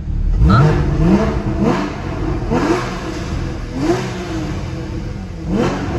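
Porsche 981 Cayman GTS 3.4-litre flat-six revved while parked, in about six short throttle blips, each rising sharply in pitch and falling back to idle.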